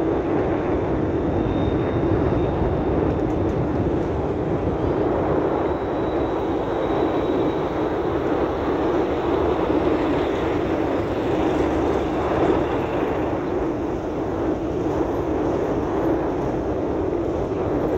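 Steady in-cabin road noise of a vehicle driving slowly on a rough dirt road: engine and tyres heard from inside.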